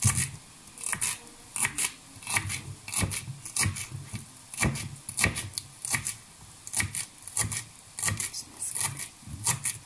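Knife chopping leafy herbs on a plastic cutting board: a long run of sharp knocks at an uneven pace, roughly two a second.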